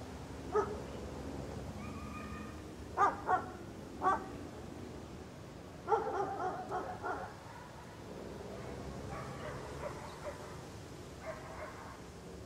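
Dog barking in short, separate barks: one about half a second in, two close together around three seconds, one around four seconds, then a quick run of several around six to seven seconds, with fainter barks later, over a steady low background hum.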